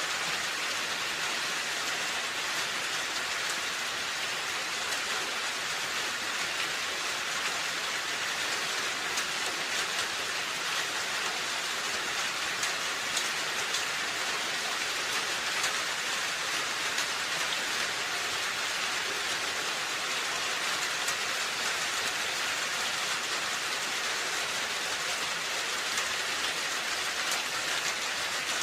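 Steady rain falling on a roof, an even hiss with many fine drop patters throughout.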